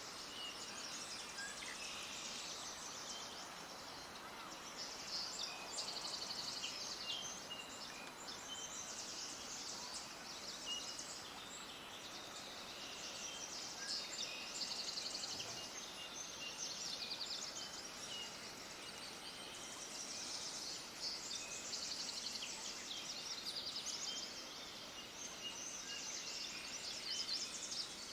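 Many small birds chirping together in a continuous chorus of short, rapid, high-pitched notes, over a faint steady background hiss.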